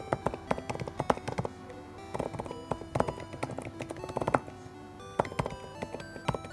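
Typing on a Lofree Flow2 low-profile mechanical keyboard with Void silent linear switches: quick, irregular, muted keystroke clicks over background music.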